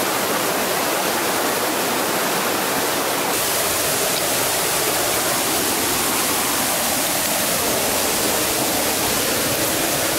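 Steady rush of a rocky stream flowing over stones, a continuous water hiss that grows a little brighter about three seconds in.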